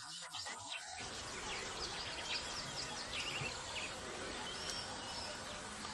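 Many small birds chirping over a steady background hiss, with the hiss filling in about a second in.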